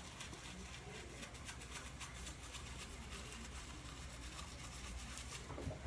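A light-up toothbrush scrubbing teeth in quick, faint, repeated brushing strokes.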